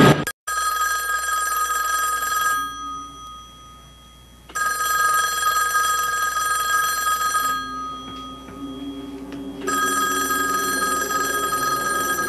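A loud sound cuts off abruptly at the very start, then a telephone bell rings three times. Each long ring lasts about two to three seconds, with a pause of about two seconds between rings.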